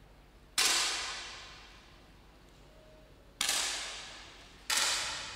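Three 10 m air rifle shots, each a sharp pop followed by an echo that dies away over about a second. The first comes about half a second in, and the other two come close together near the end.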